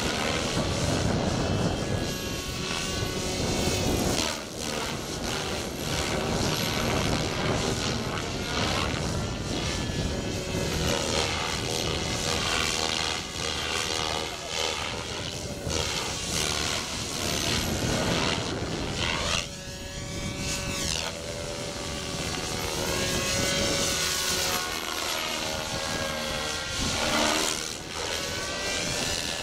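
Radio-controlled model helicopter flying aerobatics: a continuous rotor and motor whine that keeps sweeping up and down in pitch as it manoeuvres.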